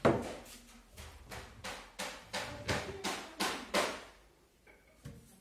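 Wooden kitchen cabinet flap doors being handled: one loud thud, then a quick run of about a dozen knocks on the wooden panels, roughly four a second, stopping about four seconds in.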